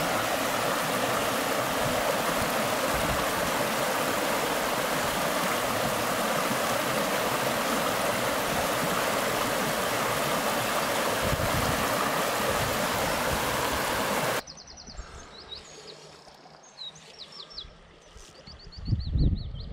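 Shallow river rushing steadily over a stony riffle. About two-thirds of the way through it cuts off abruptly to a much quieter bank where small birds chirp, with a dull low thump near the end.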